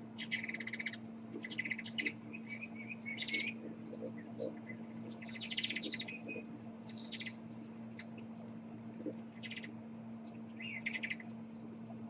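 Hummingbird chattering: about seven short bursts of rapid, high-pitched twittering chips, each under a second long, spaced irregularly over a faint steady low hum.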